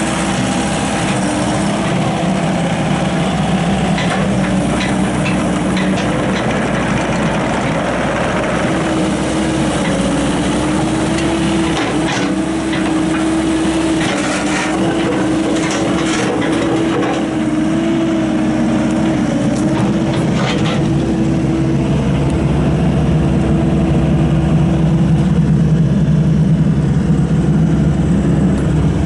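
Bobcat 442 excavator's Deutz diesel engine running, its pitch wavering up and down as the machine works. Scattered knocks and crackles come between about 12 and 21 seconds in, and the engine grows a little louder near the end.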